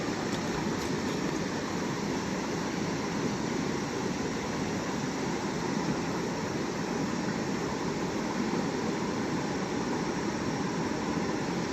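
Steady, even rushing noise with no distinct events, the kind made by flowing water, surf or wind.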